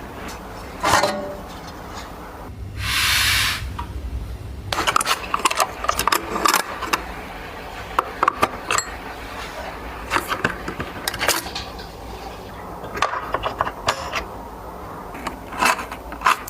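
Clicks, knocks and small clattering scrapes of hard parts being handled, irregular and scattered, with a short hiss about three seconds in.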